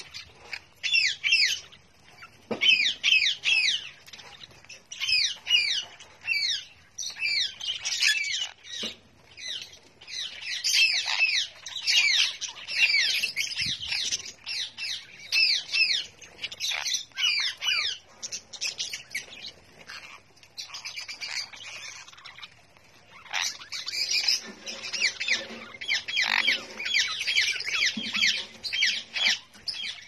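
A mixed flock of small parrots, sun conures and lovebirds among them, squawking and chattering in rapid overlapping bursts of harsh, high calls, with a brief lull about two-thirds of the way through.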